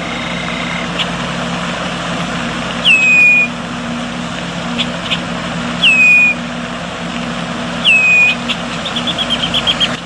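Red-winged blackbird calling: three sharp whistled notes, each dropping in pitch and then held for about half a second, a few seconds apart, and a quick run of short chip notes near the end. A steady low hum runs underneath.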